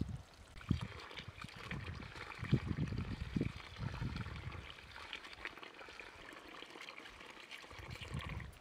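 Water trickling and splashing as rice rinse water drains out of a plastic colander-basin and a tap runs over hands into it, with a few soft low thuds in the first half.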